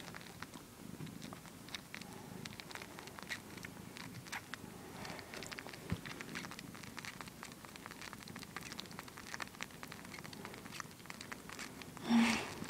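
Domestic cat suckling on her own nipples: many small wet clicks of sucking over a low purr. A short louder sound near the end.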